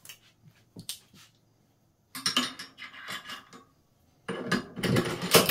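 Steel clinking and scraping from handling a Tikka rifle action and its action wrench: a few light ticks first, then runs of metal-on-metal clatter from about two seconds in and louder again near the end, as the wrench is taken off and the bolt is run.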